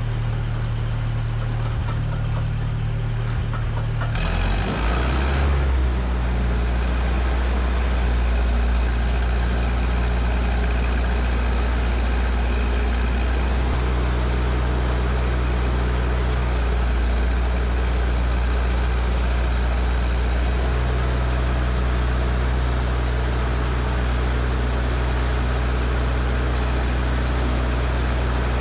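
Miller Big 40 engine-driven welder running steadily. About four seconds in, its sound changes and then holds steady at the new pitch and level.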